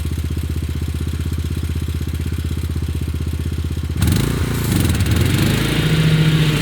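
Zero-turn lawnmower engine running steadily with an even pulse. About four seconds in, the sound changes abruptly and gets louder, the engine pitch swinging down and up before settling.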